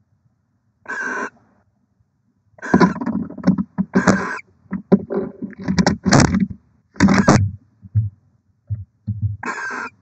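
A pair of barn owls in a nest box: short rasping hiss calls, about one and nine and a half seconds in, and between them a loud few seconds of scuffling, wing-flapping and calling as one owl moves about right by the eggs.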